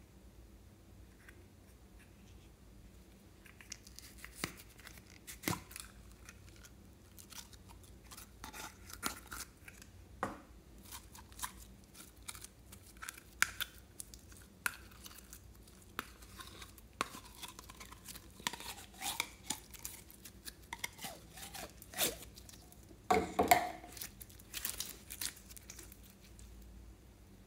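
Sticky glittery yellow slime being pulled out of a plastic tube and squeezed and kneaded by hand, making irregular crackles and clicks as it stretches and tears. The sounds begin after a few quiet seconds and come loudest near the end.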